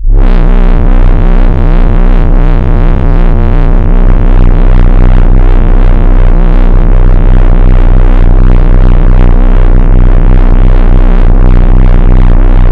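Synthesized UFO sound effect: a loud electronic drone with a steady, deep hum and a fast warbling texture above it, cutting in suddenly.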